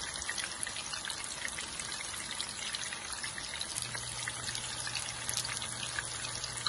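Seekh kebabs of minced meat frying in hot oil in a pan: a steady sizzle full of small crackles and pops.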